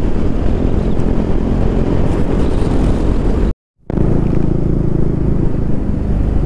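KTM 390 Duke motorcycle riding at road speed: engine running under a steady rush of wind noise. There is a brief dropout to silence about three and a half seconds in.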